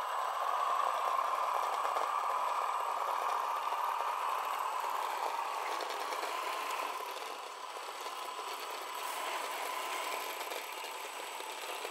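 Electric motor and geartrain of a scale RC rock crawler whining steadily as it climbs a boulder under load. The whine eases off briefly about two-thirds of the way through, then picks up again.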